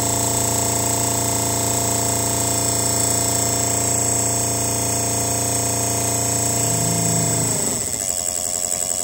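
Distributor test stand spinning a TBI distributor at raised RPM: a steady, multi-tone mechanical whine. About seven and a half seconds in, the pitch drops as the machine slows down to a low, uneven running speed.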